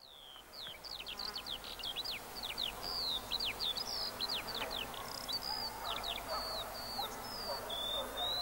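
Small birds chirping: many quick calls that slide downward in pitch, overlapping one another and fading in over the first second.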